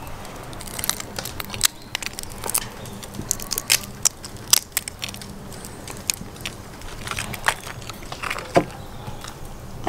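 Cooked crayfish shells being cracked and pulled apart by hand, giving many irregular sharp snaps and crackles.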